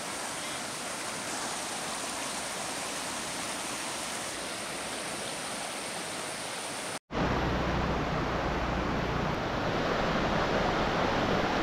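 River water rushing steadily. About seven seconds in it cuts out for an instant and comes back louder and fuller.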